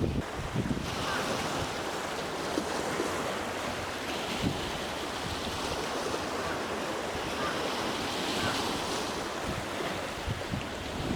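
Choppy, confused sea waves washing and splashing, with strong wind rumbling on the microphone; a steady noise without distinct events.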